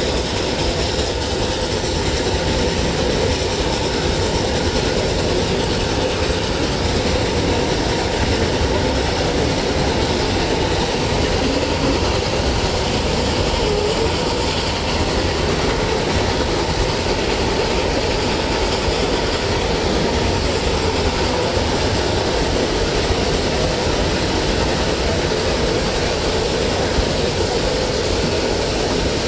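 Narrow-gauge train pulled by a two-truck Shay geared steam locomotive, running steadily along the track: an even, unbroken noise with no pauses.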